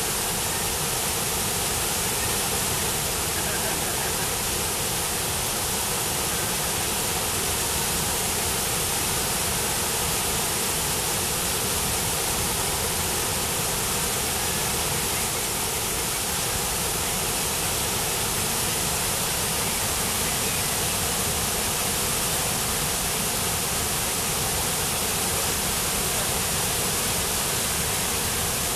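Steady, unbroken rush of a waterfall pouring over a rock ledge, the noise of falling white water filling every pitch range at an even level.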